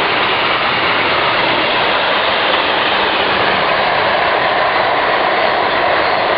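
A freight train's covered and flat wagons rolling past close by, a steady, loud noise of wheels running on the rails.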